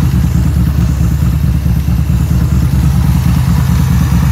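2015 Yamaha Bolt's air-cooled V-twin engine idling steadily in neutral with a fast, even low pulse.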